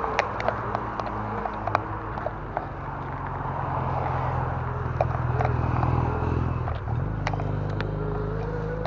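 Mountain bike ridden over a bumpy dirt single track, its parts rattling with scattered sharp clicks and knocks. Underneath is a steady low hum that swells in the middle and changes pitch about seven seconds in.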